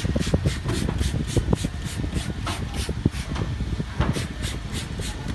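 Stiff hand brush scrubbing a tire with cleaner in quick back-and-forth strokes, about seven a second, pausing briefly a little past three seconds, over a low rumble.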